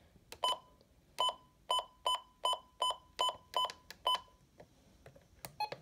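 RadioShack 12-262 weather radio beeping at each button press as its channels are stepped through: about nine short, high beeps, two or three a second, then a few faint clicks near the end.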